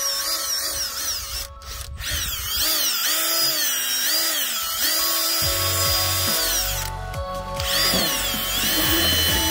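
Cordless drill spinning a scrub brush against greasy engine-bay surfaces, its motor whine rising and falling as the brush is pressed on and eased off, with brief pauses about a second and a half in and around seven seconds in.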